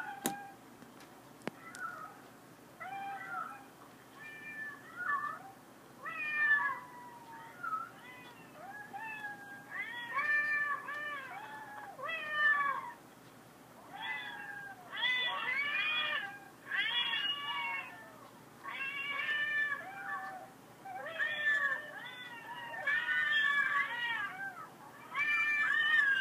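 Recorded cat meows played back, one short rising-and-falling meow after another, sparse at first and then louder and coming close together from about a third of the way in.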